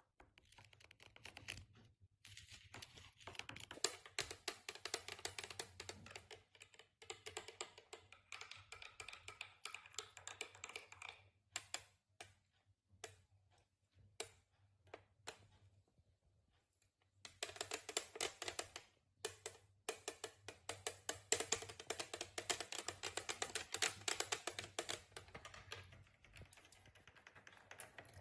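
Fingernails and metal claw-tipped nail rings tapping and scratching fast on household surfaces, first a plastic tablecloth, then the glass of a framed picture. Dense runs of quick light clicks thin out to scattered single taps midway, then pick up again.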